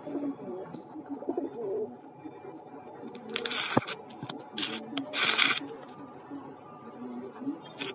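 Lakha fantail pigeons cooing, a repeated low, wavy call throughout. Several short rustling bursts break in, about three and a half seconds in, twice around five seconds, and again near the end.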